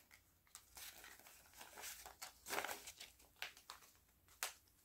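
Paper banknotes being handled and counted by hand: a string of short, faint rustles as bills are pulled out of a clear plastic envelope and off a stack.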